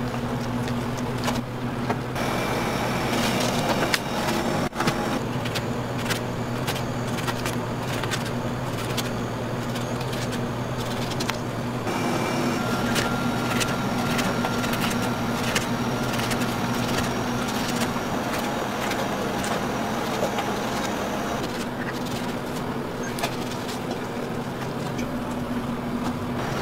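Steady low mechanical hum, like a running motor or machine, with scattered light clicks and knocks over it and a faint thin whine partway through.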